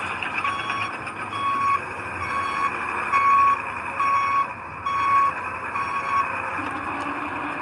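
Reversing alarm on heavy earthmoving equipment beeping about once a second over a running diesel engine, stopping a little over six seconds in as the machine stops backing.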